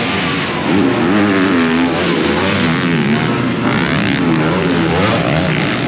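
Several 250cc motocross bikes racing, their engines revving up and down over and across each other as the riders work the throttle.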